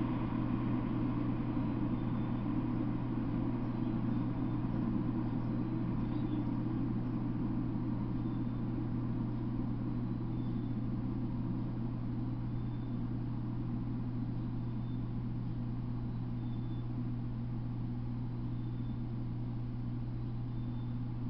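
Rumble of a freight train that has just gone by, slowly fading away, over a steady low hum. A faint high tick comes about every two seconds.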